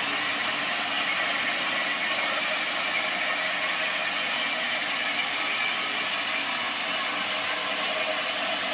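Sawmill machinery running steadily, an even mechanical noise that holds the same pitch and loudness throughout.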